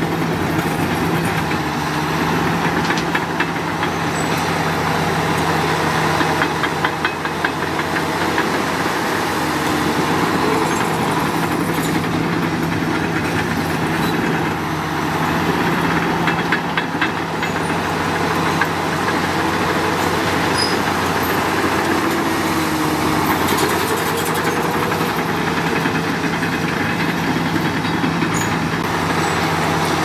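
Diesel engine of heavy earthmoving machinery running steadily at work, its pitch wavering up and down a little, with stretches of rapid clattering.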